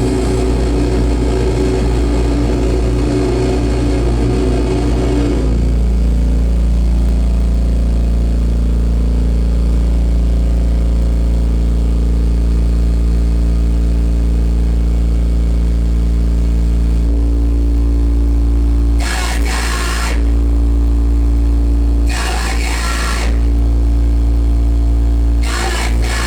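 Loud live noise-music set through a PA: a heavy sustained bass drone with layered steady tones that shift to a new set of pitches about five seconds in. Near the end, three short bursts of harsh hiss cut in over the drone.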